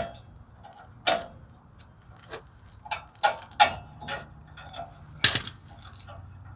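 Hand tools and a small steel retaining spring clicking and scraping against the star adjuster of a drum-in-hat parking brake as the spring is worked off: irregular sharp metallic ticks, the loudest about five seconds in.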